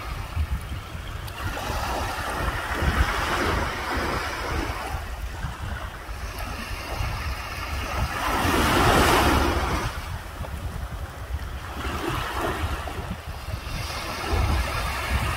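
Small sea waves washing and lapping, with one louder wash swelling and fading about nine seconds in. Wind buffets the microphone throughout with a low rumble.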